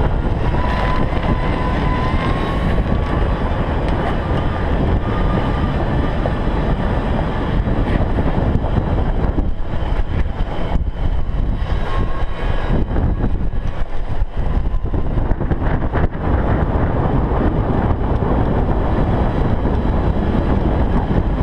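Golf cart driving along a paved path: a steady rushing noise of the ride and wind on the microphone, with a faint whine that rises a little in the first few seconds.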